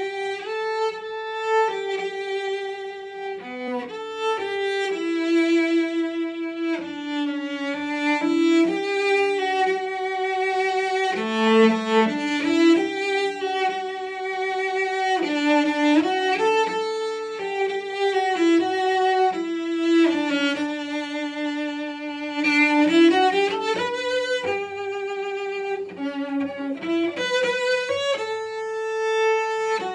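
Solo cello played with the bow: a slow, singing melody of sustained notes with vibrato, with a quick rising run of notes a little over twenty seconds in.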